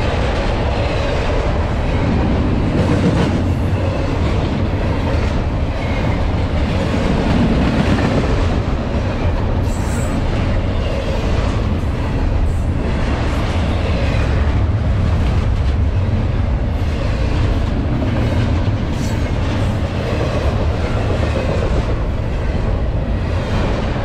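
Double-stack intermodal freight train passing close by: a steady, loud rumble of steel wheels on rail with a regular clickety-clack of wheels over rail joints.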